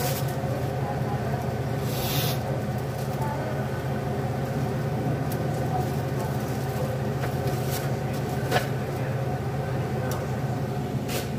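Steady low hum of a running electric motor, such as a fan, with a short rustle about two seconds in and a few sharp clicks of kitchenware later on.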